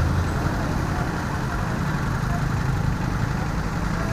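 Motor engine running steadily nearby, a low, even rumble.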